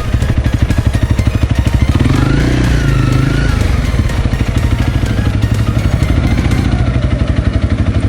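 Motorcycle engine running steadily at low speed, its exhaust beating in a fast, even pulse with no revving.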